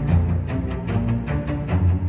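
Intro background music with deep held bass notes and a steady beat.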